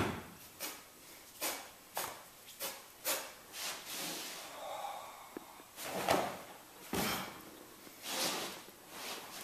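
Karate kata performed barefoot on a mat floor: a run of short, sharp sounds about once or twice a second, from feet stepping and stamping and the uniform snapping with strikes. The loudest come about six and seven seconds in.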